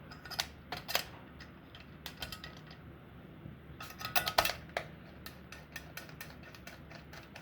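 Scattered sharp clicks and taps of small screws and plastic parts being handled during reassembly of a Uconnect head unit, with a cluster of louder clicks about four seconds in. A faint steady hum runs underneath.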